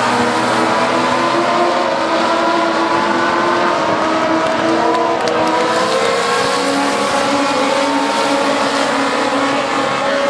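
A pack of Legends race cars running laps on a short oval, their Yamaha motorcycle engines revving high. Several engines sound at once, with pitches sliding up and down as the cars come and go through the corners.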